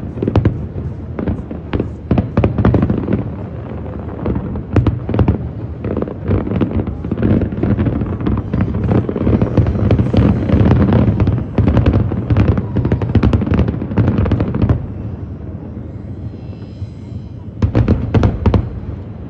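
Aerial fireworks display: a dense, rapid barrage of explosive bangs for about fifteen seconds. After a brief lull, another short volley of bangs comes near the end.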